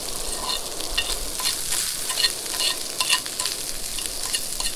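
Hash browns and sausage frying in a cast-iron skillet, sizzling steadily, while a metal fork stirs them and clinks and scrapes against the pan every half second or so.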